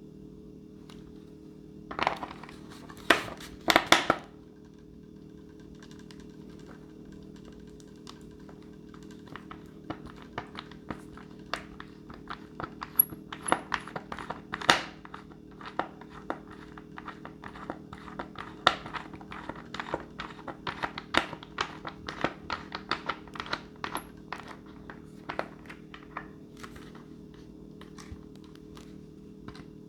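Small plastic and foam parts of an RC model airplane being handled and fitted, heard as irregular clicks and clacks. There is a loud cluster of clacks about two to four seconds in and scattered lighter clicks through the middle, over a steady hum.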